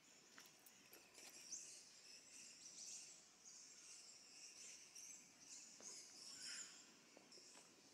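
Faint forest ambience: small birds and insects chirping continuously at a high pitch.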